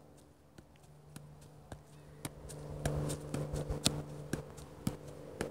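Soccer ball being juggled: light, even taps of foot on ball about twice a second, over a steady low hum.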